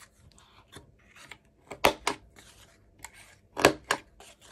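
Desktop corner-rounder punch cutting the corners of kraft-paper cards: two sharp clicks in quick succession, heard twice, a little under two seconds apart.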